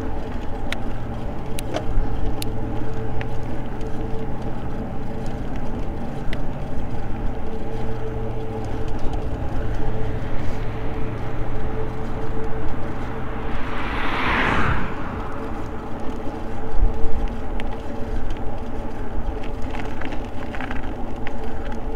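Riding an e-bike on a paved trail: wind rumble on the microphone and a steady hum from the bike. About fourteen seconds in, a car passes on the adjacent road with a whoosh that swells and fades within about a second.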